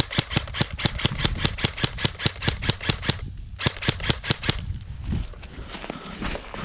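Airsoft gun firing rapid strings of shots, about six or seven sharp cracks a second, with a short pause about three seconds in and more scattered shots after.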